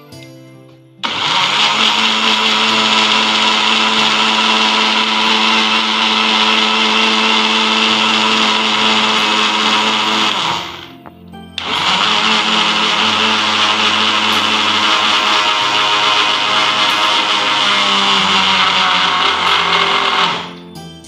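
Electric countertop blender running on a jar of strawberries, sugar and milk, grinding them into a milkshake. It starts about a second in, runs steadily for about nine seconds, stops for about a second, then runs again for about nine seconds and stops just before the end.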